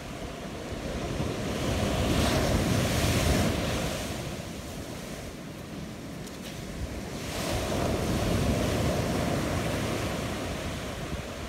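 Ocean surf and wind, swelling loudest about two seconds in and again past seven seconds, with wind rumbling on the microphone.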